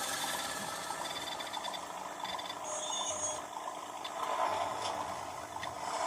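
Accucraft Galloping Goose #6 model's DCC sound decoder playing a rattly motor-car engine sound as the model runs. A brief high tone sounds about three seconds in.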